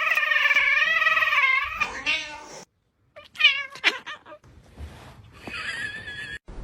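A cat's long meow with a wavering pitch, followed after a brief break by a few shorter meows.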